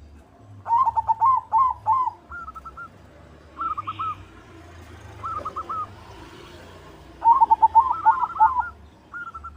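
White zebra dove (perkutut) singing: quick runs of short, clear cooing notes, with two longer phrases, one about a second in and one about seven seconds in, and shorter phrases between them.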